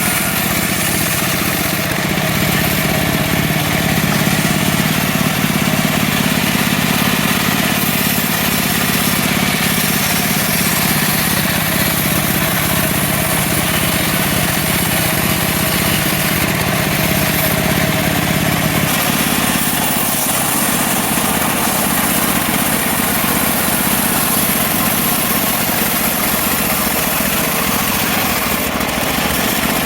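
Small petrol engine of a portable sawmill running steadily under load while sawing mahogany logs. The low part of its note changes about two-thirds of the way through.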